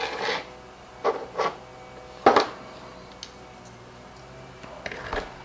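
Small carburetor parts and a rebuild kit being handled on a workbench: a few scattered clicks and rustles, the sharpest about two seconds in.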